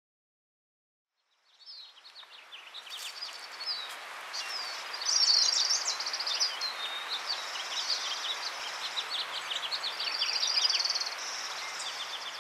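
Shallow creek water running steadily over rocks, with several songbirds chirping and trilling over it; the sound fades in from silence about a second and a half in.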